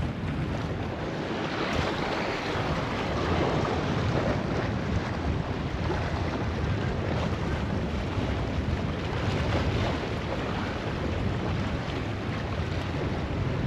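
Wind buffeting the microphone over the steady wash of surf and waves in an ocean inlet.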